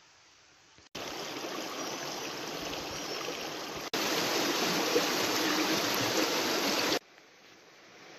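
Shallow rocky mountain stream rushing over stones. The sound starts suddenly about a second in, jumps louder about halfway, and cuts off suddenly near the end.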